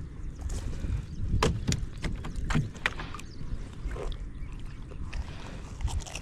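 Water sloshing with a low rumble, and several sharp splashes or knocks between about one and a half and three seconds in.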